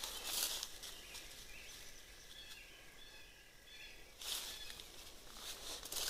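Footsteps crunching and brushing through dry leaf litter and undergrowth. The steps stop after about half a second, leaving faint bird chirps for about three seconds, then start again.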